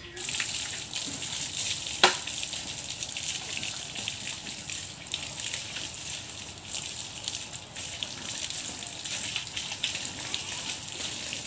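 Water from a garden hose spraying onto a cow's back and splashing onto the brick floor, a steady hiss and patter that starts suddenly. There is a single sharp click about two seconds in.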